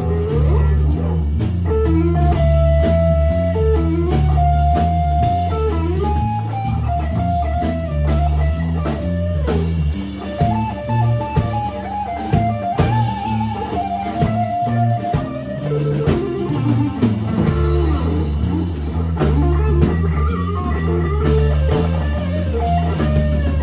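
Rock band playing live: electric guitars through amplifiers, one taking a lead with long held and bent notes, over a drum kit and a steady low rhythm.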